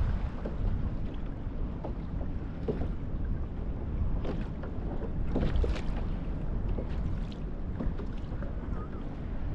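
Wind rumbling on the microphone, with water lapping against a kayak's hull and a few light knocks.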